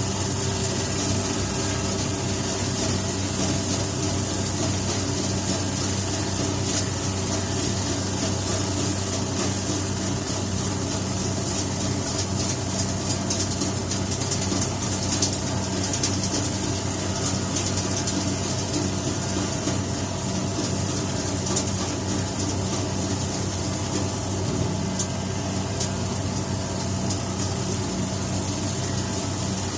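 Down-jacket recycling machine running: a steady motor hum with suction and blowing noise and fine rattling over it.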